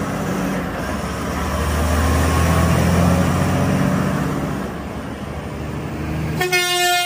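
Diesel engine of a Volvo heavy-haulage tractor unit pulling a loaded multi-axle lowboy trailer past at low speed: a steady low hum with tyre and road noise that swells as it passes. Near the end a run of pitched notes cuts in.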